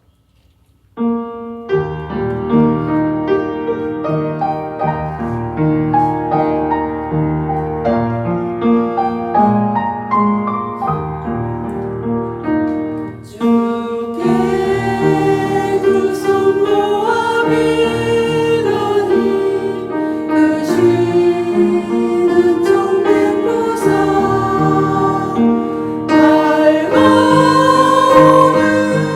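Church choir anthem with piano accompaniment: the piano starts the introduction about a second in and plays alone, then the choir comes in singing about halfway through.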